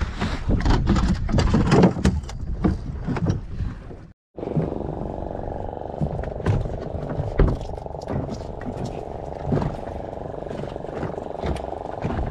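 Voices over wind for about four seconds, then an abrupt cut. After the cut, a small fishing boat's outboard motor runs steadily, with scattered sharp knocks.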